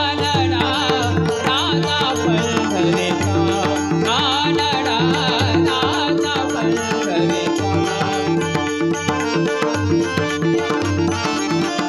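Marathi abhang devotional music: wordless, wavering sung melismas over a steady drone and a running tabla rhythm, turning into a busier instrumental passage in the second half.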